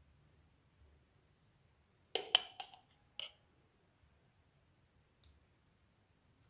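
Pizza sauce container being handled: a quick run of sharp clicks and knocks about two seconds in, then one more knock about a second later.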